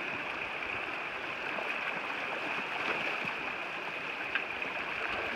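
Small rocky stream running over stones, a steady rushing with a few faint knocks.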